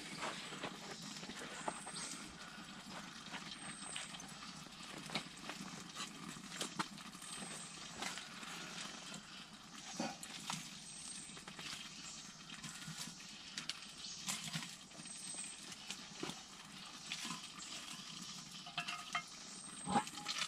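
Irregular faint clinks, knocks and scrapes of a metal tool against a cast-iron Dutch oven as hot coals are raked off its lid and the lid is worked loose.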